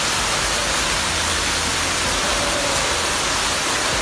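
Floodwater rushing across the floor and pouring down through the ceiling: a steady, unbroken rush of water.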